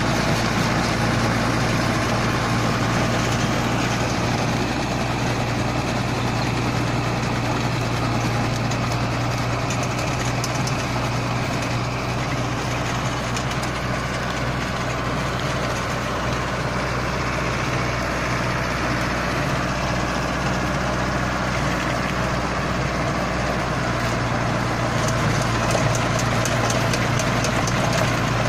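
Mahindra Arjun Novo 605 DI-i's 57 hp diesel engine running steadily under load in creeper gear, driving a PTO rotavator that churns soil and cut branches. A constant low engine hum sits under a dense mechanical clatter, with a few clusters of ticks.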